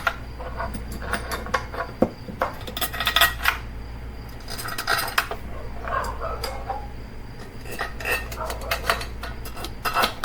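Repeated light clicks and clatter of metal and plastic parts as a car radio head unit is handled and turned face down on a work surface, coming in small bunches.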